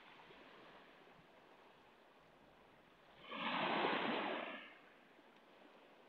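A small wave breaking and washing up a pebble shore: one rush of surf that swells about three seconds in and fades within about a second and a half, over a faint steady hiss of the sea.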